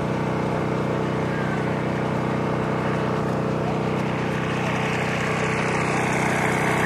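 A small engine running steadily at one constant speed, a low droning hum that does not rise or fall.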